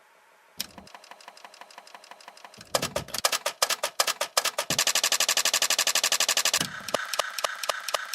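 Typewriter keys clattering in a fast, even run of clicks. It starts after a brief hush, gets louder, and swells into a near-continuous clatter for about two seconds before settling back into a steady stream of separate clicks.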